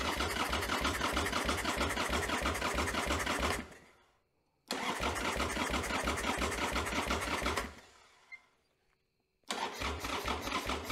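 Electric starter cranking a freshly rebuilt 1995 Harley-Davidson Sportster Evolution V-twin in three bursts of a few seconds each, the engine turning over rhythmically without firing. It has not caught yet, as the carburetor float bowl may still be empty of fuel after the top-end rebuild.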